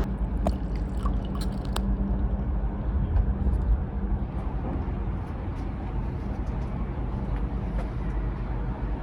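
Steady low rumble of running machinery, with a few light clicks in the first two seconds.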